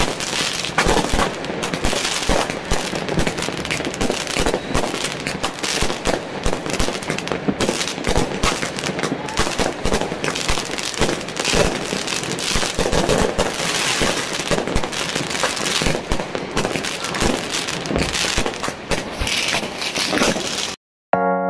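Many fireworks going off at once: a dense, unbroken barrage of bangs and crackling. It cuts off suddenly near the end, and piano music starts.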